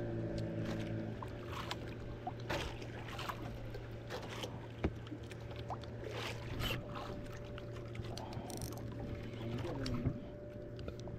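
A fishing boat's engine running with a steady low hum, with water sloshing against the hull and scattered knocks and clicks on board; one sharp knock about five seconds in is the loudest.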